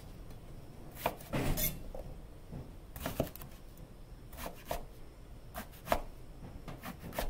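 A broad chef's knife slicing through long eggplants and knocking on a wooden cutting board: a dozen or so sharp chops, coming in small irregular clusters.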